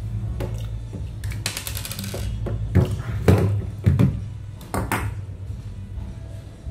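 Metal parts of a hot air gun clinking and knocking against each other and the table as it is put back together: a quick rattling run of clicks about a second and a half in, then a handful of sharp knocks.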